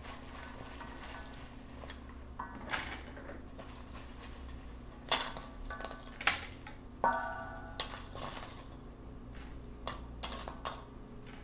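Fries and a paper towel being handled in a stainless steel mixing bowl: irregular rustling and clattering, with several sharper clanks of the bowl from about five seconds in and a brief metallic ring near seven seconds.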